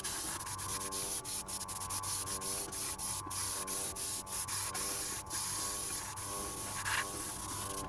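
Airbrush spraying: a steady hiss of compressed air and stain through the nozzle, dipping briefly a few times as the trigger is eased, and stopping near the end.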